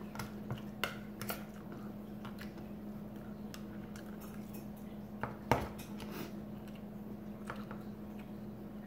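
A metal fork clinking and scraping in a metal tuna can, with chewing between the strokes. There is a cluster of light clinks in the first second and a half, and the sharpest clink comes about five and a half seconds in.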